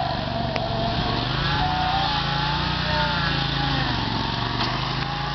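Lawn mower engine running steadily, its pitch drifting up and down a little, with two faint ticks about four seconds apart.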